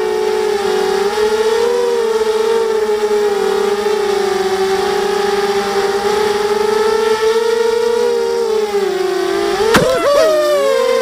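FPV quadcopter's electric motors and propellers whining steadily, the pitch wavering up and down with the throttle. Near the end a sharp click, then the pitch dips quickly and climbs back.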